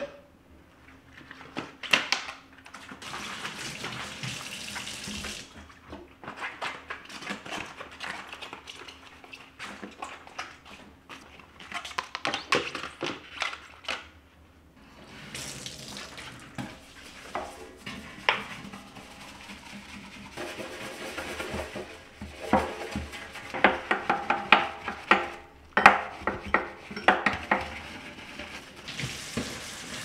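Washing up at a stainless steel kitchen sink: tap water running and splashing, with small clicks and knocks of things being handled. Later, quick repeated scrubbing strokes of a bristle brush on the sink around the faucet base.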